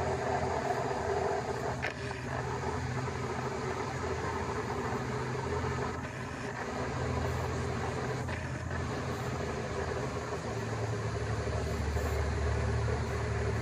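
Diesel locomotive hauling a freight train as it approaches, its engine running with a steady low drone that grows louder near the end as it comes closer.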